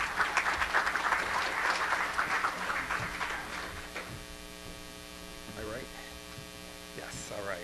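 Audience applauding for about four seconds, then dying away, over a steady electrical hum.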